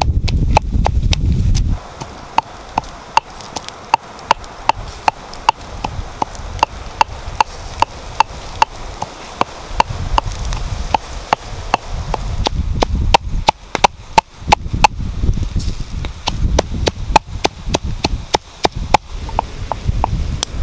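Pestle pounding red chillies and garlic in a wooden mortar: heavy thuds at first, then a steady knocking about twice a second. From about halfway there are denser, irregular sharp cracks over a low rumble, the wood fire crackling under the grilling fish.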